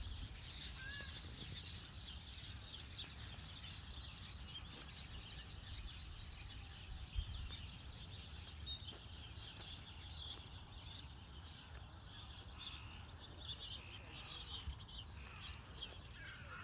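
Faint outdoor ambience: small birds chirping in the distance over a low steady rumble, with one short knock about halfway through.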